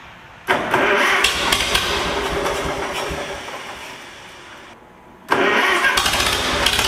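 The 1960 Oliver OC-46 crawler loader's spark-ignition engine being started twice. About half a second in it cranks and runs, fades and stops before five seconds. Just after five seconds it is started again and keeps running.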